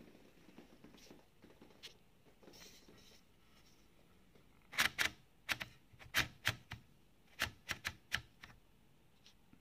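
Olivetti Lettera 32 portable typewriter clacking: about ten sharp, irregular mechanical strikes in under four seconds, starting about halfway in, after a few faint clicks and rustles.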